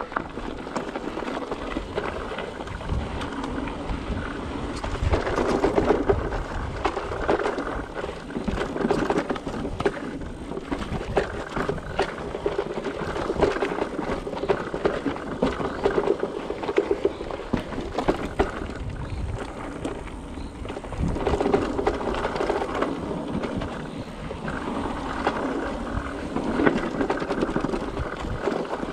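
Mountain bike riding down a dirt flow trail: steady tyre noise on the ground with frequent knocks and rattles, getting louder in waves as speed builds.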